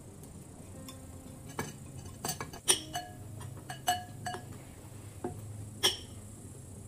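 Metal spoon clinking and scraping against a glass bowl of ice: a string of sharp, briefly ringing clinks, the loudest about three seconds in and another near six seconds.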